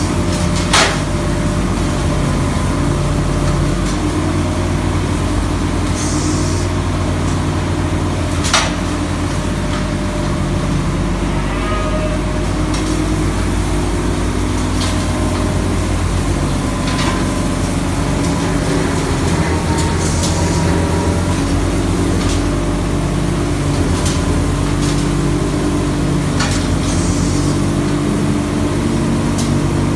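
Tractor engine running steadily under load while driving a McHale C460 straw chopper, whose rotor blows chopped straw out as bedding. A couple of sharp knocks cut through, one just after the start and one about eight seconds in.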